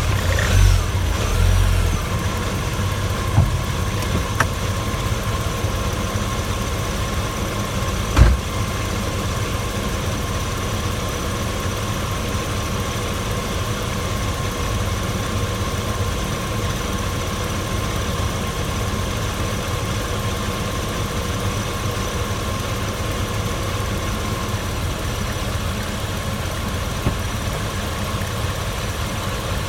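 Porsche Boxster 986 S 3.2-litre flat-six engine running steadily. A few dull low thumps sound near the start and one about eight seconds in.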